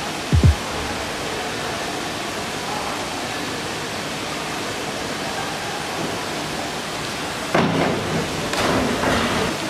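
Steady rushing hiss of a large indoor swimming-pool hall. A short low thump comes just under half a second in. Near the end a diver leaving the platform is followed by a rough burst of noise, the splash of his entry into the pool.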